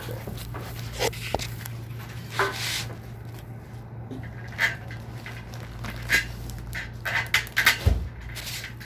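Scattered light knocks and clicks of objects being handled, over a steady low hum, with a quick cluster of knocks and a low thump near the end.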